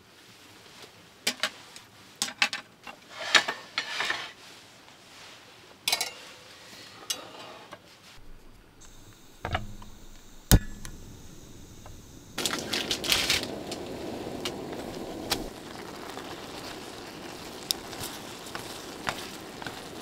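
Light clicks and taps of chopsticks and dishes, then a sharp click from a Soto regulator camping gas stove's igniter about halfway through. Soon after, the burner lights and runs with a steady hiss.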